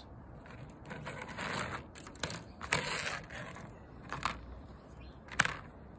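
Plastic model-kit sprues being handled: a stretch of rustling, with a couple of sharp plastic clicks, one of them near the end.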